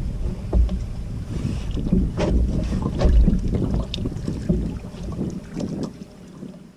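Wind buffeting the microphone in low rumbling gusts, with scattered short knocks and clicks from handling aboard a small boat, dying down near the end.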